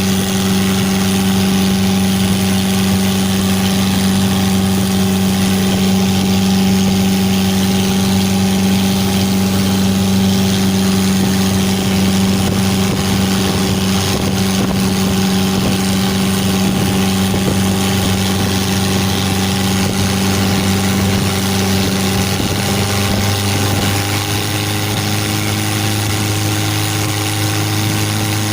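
Mitsubishi L300 engine running steadily at idle, its speed dropping slightly about 24 seconds in.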